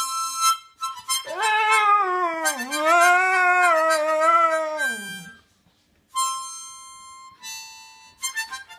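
Staffordshire bull terrier howling along to a harmonica. A short harmonica chord is followed by one long howl of about four seconds that dips in pitch midway and falls away at the end. Then the harmonica comes back with held notes, and quick chords near the end.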